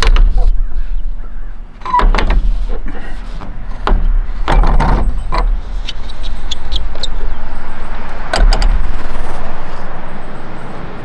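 Aluminium-framed solar panel knocking and scraping against a metal roof rack as it is lowered and slid into place: a few sharp clunks, and a stretch of scraping in the second half.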